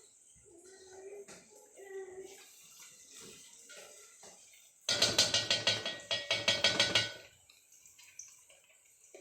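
Water pouring from a tap into a metal cooking pot for about two seconds, about halfway through, with faint kitchen clatter before it.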